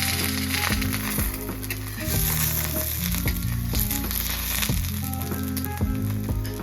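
Food sizzling and frying in a hot pan, a steady crackling hiss.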